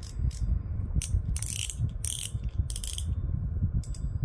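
Front drag of a KastKing Centron 4000 spinning reel being worked by hand, giving a run of irregular ratcheting clicks that thin out near the end, over a low handling rumble.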